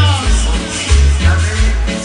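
Loud Latin dance music with a prominent stepping bass line, played over a sound system.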